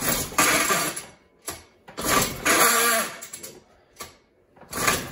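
Recoil starter of a 1949 Johnson Sea-Horse HD25 two-cylinder two-stroke outboard being pulled several times, each pull a noisy whir of about a second as the rope spins the flywheel. The engine does not catch between pulls. The starter feels wrong to the owner, who finds it was mounted too tight.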